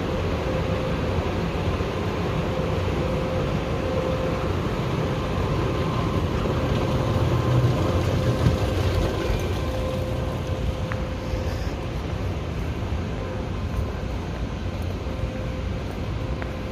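Steady low rumble of a large airport terminal hall, with a faint steady hum running through it, heard while walking through the concourse.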